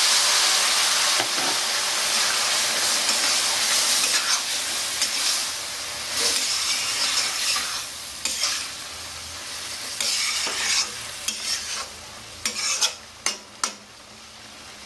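Boiled ridge gourd and potato with their cooking liquid sizzling hard in a kadai of hot oil and fried prawns as a metal spatula stirs them through. The sizzle is loudest at first and dies down steadily. Near the end come a few sharp clinks of the spatula against the pan.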